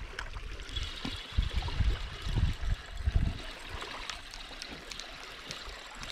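River water trickling and lapping, with several low thumps between about one and a half and three and a half seconds in.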